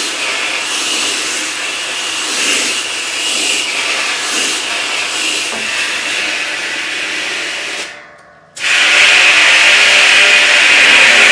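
Garden hose spraying a strong jet of water against the washing machine's tub, a loud steady hiss. The spray cuts off for about half a second near the end, then comes back louder.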